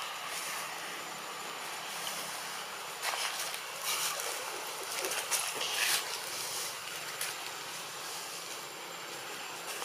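Steady outdoor hiss with a thin high tone, and from about three to six seconds in a run of crackling and rustling of leaves and twigs as long-tailed macaques shift about in the branches.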